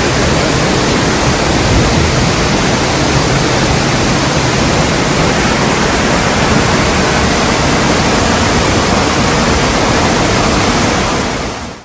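Loud, steady rush of a waterfall, fading out just before the end.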